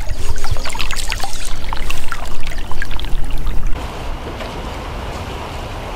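Wind buffeting the microphone, with handling knocks and clicks. About four seconds in, it cuts to the steady rushing of a shallow river.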